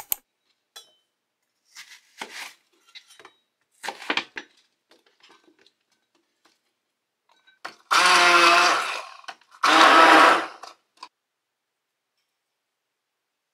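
Small electric kitchen motor, like a blender's, run in two short pulses of about a second each, the second starting just after the first stops. Before them come light handling clicks and rustles.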